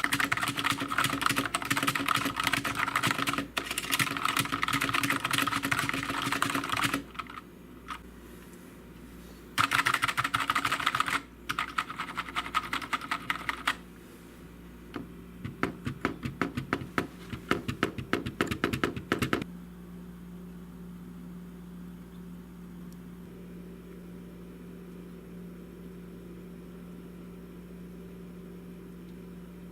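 Typing on a GMMK TKL mechanical keyboard: dense runs of quick key clicks in several bursts with short pauses, stopping about two-thirds of the way through. A steady low hum remains after the typing stops.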